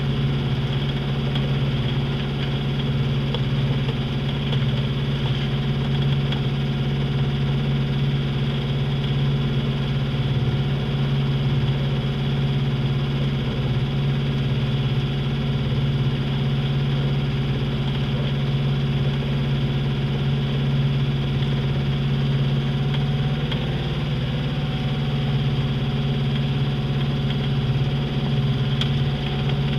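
Sailboat's engine running steadily at a constant speed, a low even drone.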